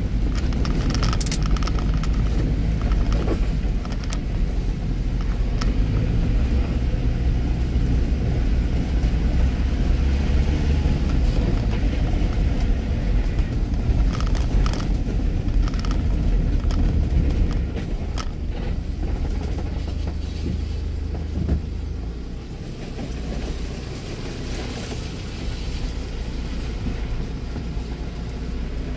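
Steady low rumble of a car in motion, with scattered light clicks; it eases about eighteen seconds in and drops lower after about twenty-two seconds.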